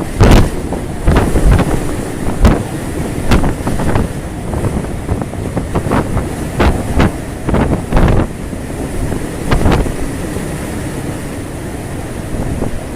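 Storm wind battering the microphone in repeated hard gusts, over a steady rush of wind and sea aboard a ship in heavy weather.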